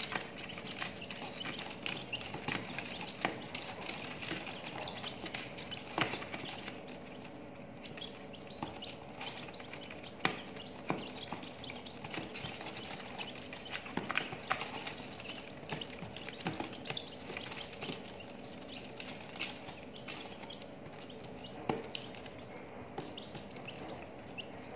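Serama chicks pecking crumbled feed off newspaper: irregular light, crunchy taps, with a few high chick peeps about three seconds in.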